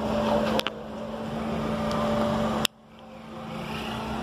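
Street traffic noise heard while riding, swelling and then cut off abruptly twice, with a steady low tone underneath.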